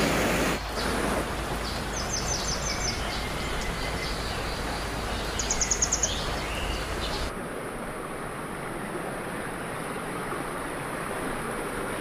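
Rushing water of a rocky river running over rapids, a steady hiss with a deep rumble. About seven seconds in the sound changes abruptly to a lighter stream burbling over stones, with the rumble gone. A bird gives two brief high, rapid trills in the first half.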